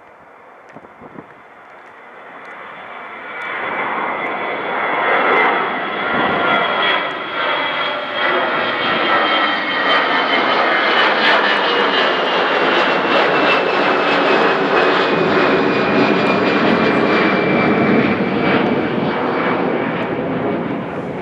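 Twin-engine jet airliner climbing out after takeoff: its turbofan engines swell over the first few seconds into a loud, steady roar, with a high whine that slowly falls in pitch as the aircraft passes.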